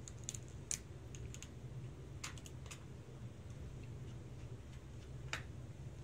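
Scattered light clicks and ticks of a small screwdriver working a screw out of a laptop's hard-drive retaining clip, with metal and plastic handling of the open chassis. They come in little clusters, the sharpest near the start and another a little after five seconds, over a steady low hum.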